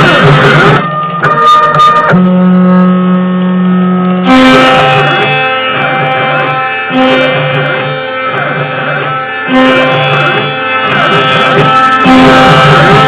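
Instrumental background music: pitched melody notes over a repeating low beat, with one low note held for about two seconds early on.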